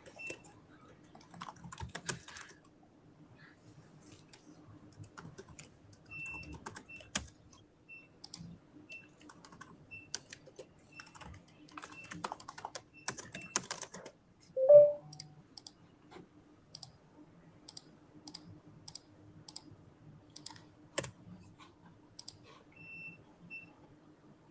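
Computer keyboard typing in irregular runs of clicks, over short high beeps about once a second and a faint steady hum. One brief louder sound stands out about fifteen seconds in.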